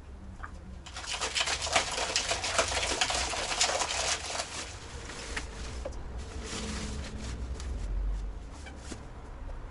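Crinkling, rustling handling noise: a dense crackle of fast clicks from about a second in, thinning after about four seconds into scattered clicks.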